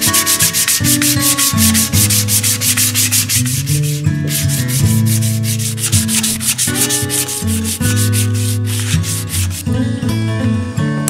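Wooden adze handle being sanded by hand: quick, even back-and-forth scratching strokes, about seven a second, pausing briefly around the middle and stopping near the end. Background music plays underneath.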